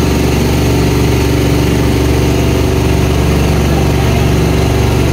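A boat's engine running steadily and loud, with an even, unchanging hum.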